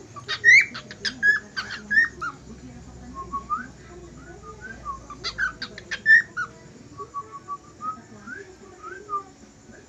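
Cockatiel whistling: quick series of short sharp whistles and chirps in two loud bursts, near the start and about five seconds in, with softer short rising whistle notes between them.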